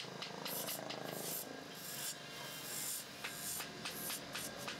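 A hand chisel cuts into a wooden table leg spinning on a wood lathe: a rough, continuous scraping hiss as the tool peels off shavings, broken by many irregular sharp ticks.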